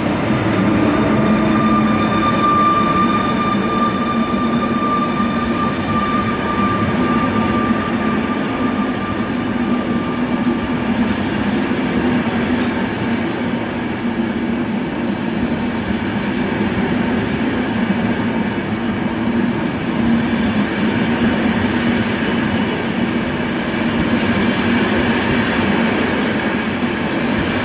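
Electric-hauled Intercity passenger train passing through at speed, its coaches rolling by with a steady, loud rumble of wheels on rails. A thin steady whine fades out about ten seconds in.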